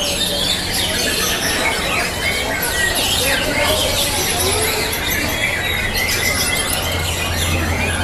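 Many caged songbirds singing at once in a contest, a dense chorus of overlapping chirps, trills and whistles, over a steady low hum.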